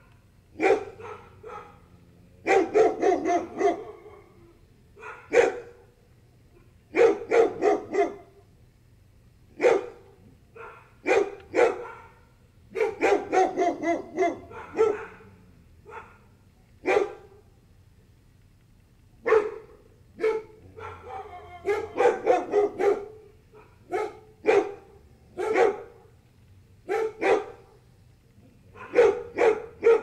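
A dog barks in runs of several quick barks, with pauses of about one to two seconds between the runs.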